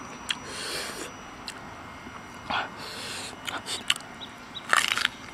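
A man hissing in sharp breaths through his mouth against the heat of super-spicy chili salt, with small wet mouth clicks, then a short sharp bite into a chili-topped piece of raw green banana near the end.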